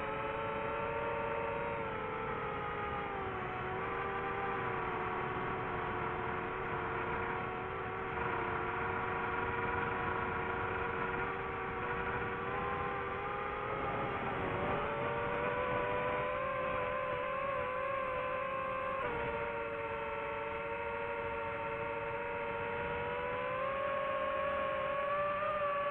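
FPV quadcopter's electric motors and propellers whining steadily over a rush of air, the pitch gliding up and down with the throttle and dropping sharply about two-thirds of the way through.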